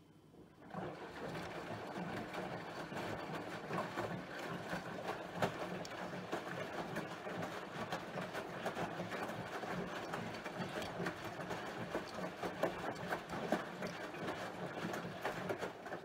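Bosch Serie 4 VarioPerfect washing machine drum turning in its rinse stage, with water sloshing and splashing against the door glass and the load tumbling. It starts about a second in.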